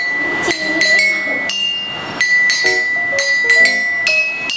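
A quick run of bright, bell-like musical notes, each struck sharply and ringing briefly, several per second: a short melody of tones to be memorised and repeated.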